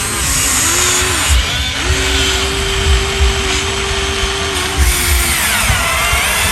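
Small electric gear motors of a Huina 1593 RC excavator whirring: a steady whine rises about half a second in, holds from about two seconds to nearly five, then drops away.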